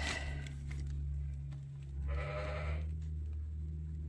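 A sheep bleats once, a short call of under a second about two seconds in, over a steady low hum.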